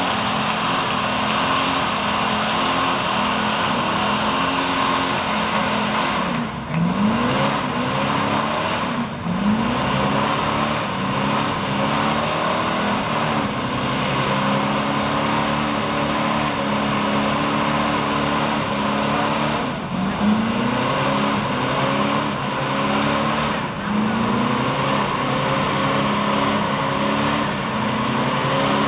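A pickup truck's engine is held at high revs through a burnout, its pitch dropping briefly several times and climbing again each time. The spinning tyres squeal steadily underneath as they smoke.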